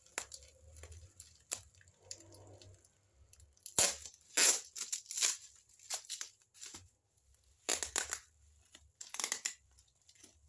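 Brown packing tape and black plastic wrapping being torn off a parcel by hand: a series of short ripping bursts with plastic crinkling between them, the loudest rips about four to five seconds in and again near eight to nine seconds.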